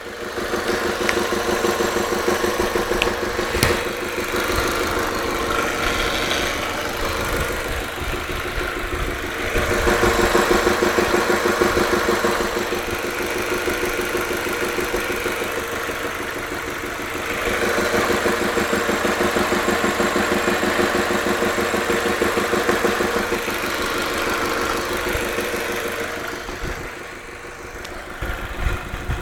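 Audi A3 1.8T turbocharged four-cylinder engine running with a rapid, regular abnormal knocking, a 'tuc tuc tuc' over the engine note. It grows louder for a couple of seconds about ten seconds in and again for several seconds from about eighteen seconds in.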